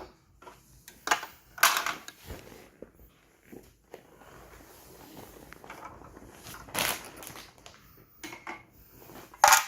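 Plastic toy food and toy refrigerator pieces being handled, giving a few scattered clacks and knocks, the loudest near the end.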